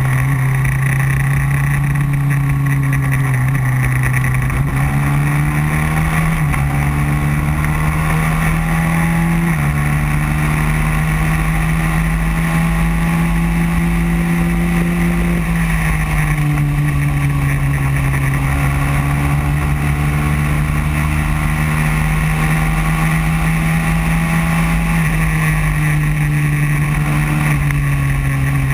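Racing kart engine running hard on track, heard from onboard: its pitch climbs as the kart speeds up and drops as it slows for corners, with a few sudden jumps in pitch, over a steady rush of wind.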